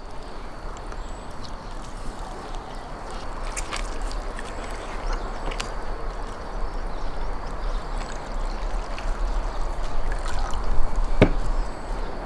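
Roasted lamb being pulled apart by hand on a wooden board: steady tearing and crackling of the crisp roasted meat and skin, getting louder, with a single knock about eleven seconds in.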